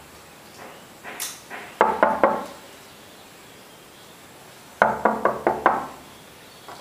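Knuckles knocking on a wooden door: about three knocks two seconds in, then a quicker run of about six knocks near five seconds.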